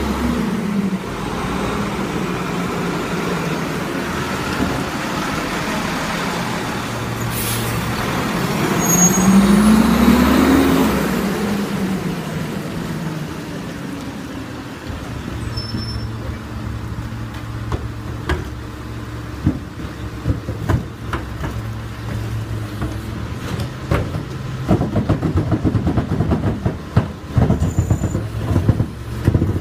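Crane Carrier LET diesel garbage truck running as it pulls up and stops, its engine note rising once about nine seconds in and then settling to an idle. In the second half, plastic garbage carts knock and clatter as they are rolled to the Leach rear loader and hooked onto its cart tipper.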